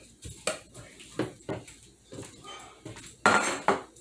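Metal spoon and stainless steel saucepan clinking and knocking: several light taps, then a louder clatter a little over three seconds in as the pot is handled on the counter.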